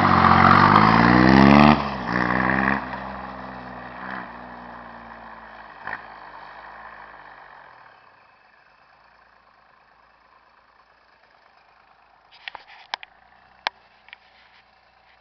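Turbo diesel motorcycle accelerating hard, its engine note climbing for about two seconds, breaking, then surging again before fading away as the bike rides off. A few sharp clicks come near the end.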